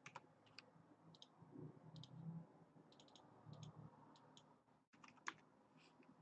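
Near silence with faint computer mouse clicks, a dozen or so scattered through it, some in quick pairs or threes.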